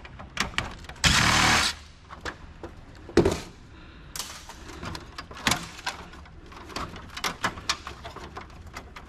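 Hands prying a small circuit board out of a CD-ROM drive: scattered clicks, taps and plastic and metal rattling, with a loud scraping burst about a second in and a sharp knock a couple of seconds later.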